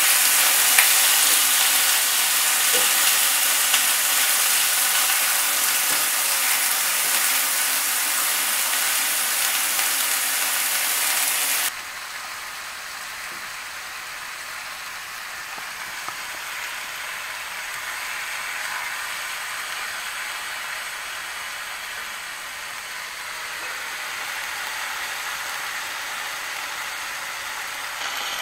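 Chicken pieces sizzling as they sear in hot oil in a skillet: a steady frying hiss, with a few light clicks in the first few seconds. The hiss drops suddenly to a quieter level about twelve seconds in.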